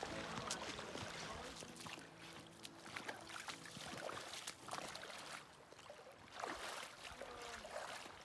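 Shallow river water flowing quietly, with scattered small splashes and clicks as people wade through it.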